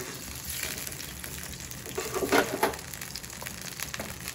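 Palm jaggery syrup in sesame oil sizzling and bubbling in an iron kadai as it heats towards the boil, with a steel spoon stirring it. A few louder scrapes of the spoon against the pan come around the middle.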